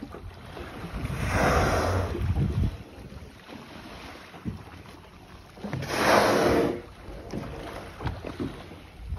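Humpback whales blowing as they surface alongside the boat: two whooshing exhalations, each about a second long and some four to five seconds apart, the second the louder, over low wind rumble on the microphone and lapping water.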